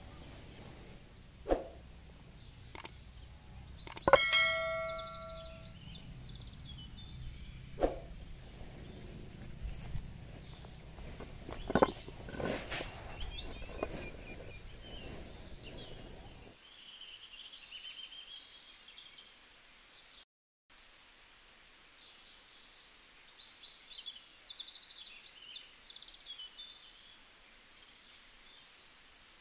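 Stones and bricks knocked and set down on each other by hand, a few sharp knocks, one of them about four seconds in ringing on as a clink, over a steady high drone of insects. About halfway through the drone stops suddenly, and faint bird chirps are left.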